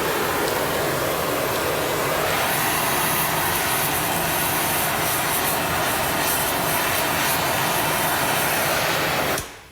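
Gas torch flame burning with a steady rushing hiss while heating steel for heat treating. The sound shifts slightly about two seconds in and cuts off suddenly near the end.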